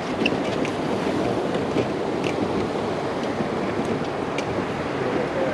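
Wind buffeting the microphone over water lapping against a small boat's hull, with a few faint clicks scattered through.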